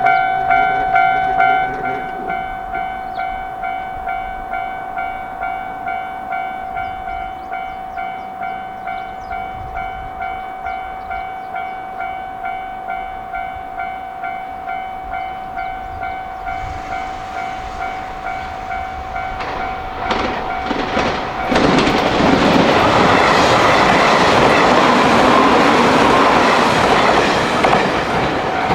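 A Japanese level-crossing warning bell rings in an even, repeating pattern. Toward the end a train approaches, and from about three quarters of the way in it passes the crossing loudly, its wheels running over the rails and largely covering the bell.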